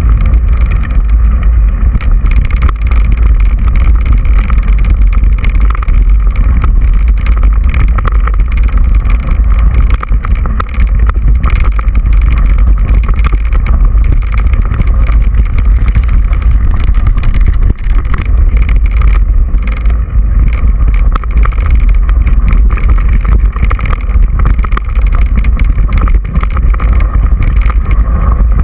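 Loud wind buffeting and rumble on a GoPro camera riding on a mountain bike over a rough, stony dirt track, with frequent small knocks and rattles from the bumps.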